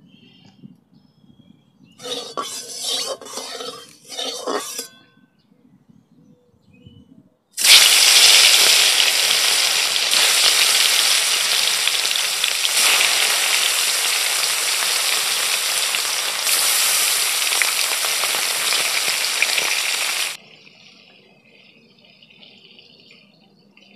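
Pieces of lyata (snakehead) fish frying in hot mustard oil in an aluminium kadai: a loud, steady sizzle of about thirteen seconds that cuts off suddenly. It is preceded about two seconds in by three short bursts of spattering.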